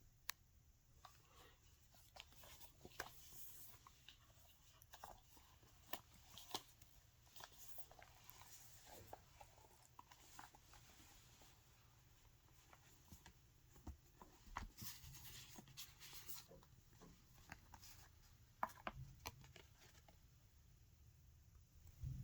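Paper and card being handled: soft rustles and scattered light taps as the pages and inserts of a hardbound portfolio are turned and moved, with one sharper tap near the end.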